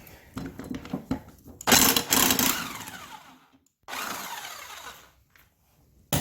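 Impact wrench with a 9/16 socket hammering the lawnmower's blade bolt loose in a short loud burst, its motor winding down with a falling whine. A second, briefer run spins down the same way, and a sharp metal clank comes near the end.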